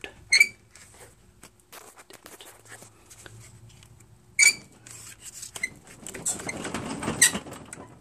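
Kohler Courage engine's flywheel turned slowly by hand at its plastic grass screen, to bring the flywheel magnet round to the ignition coil. It gives two short high squeaks about four seconds apart, faint clicks, and a rustling scrape with a sharp click near the end.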